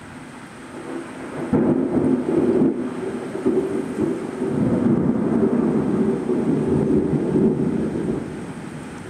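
Thunder over steady rain: a sharp crack about a second and a half in rolls into a long, loud rumble that fades near the end.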